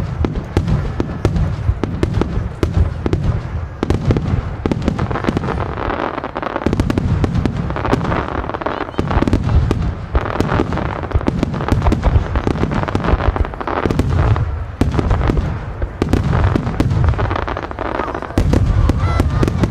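Starmine fireworks barrage: many shells bursting in rapid succession, dense overlapping bangs and crackles over a continuous deep rumble. Brief lulls come a few times before the bursts pile up again.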